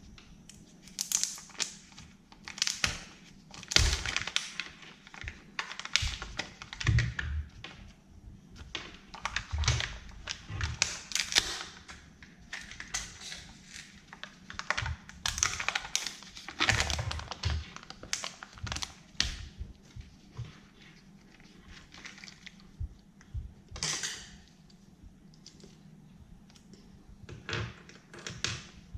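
Hands handling and unwrapping candy packaging: irregular crinkles of wrappers and taps and thunks of items knocked against a table, in short clusters with brief pauses between.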